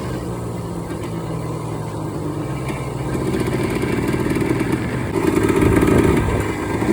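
Yamaha Blaster's two-stroke single-cylinder engine running under way, the throttle opened a little about three seconds in and more about five seconds in. The top end is freshly rebuilt and being ridden gently to break it in.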